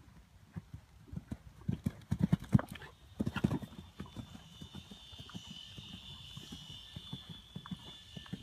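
A bay horse's hoofbeats at the canter on a sand arena, as a run of dull thuds that grow loudest as it passes close, about two to three and a half seconds in, then fade as it moves away. A steady high tone comes in at about three and a half seconds and stays.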